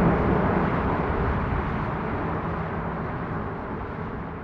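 Airbus A321neo jet climbing away after takeoff, its Pratt & Whitney PW1100G geared turbofans at climb power: a steady rushing engine noise that fades gradually as the aircraft moves off.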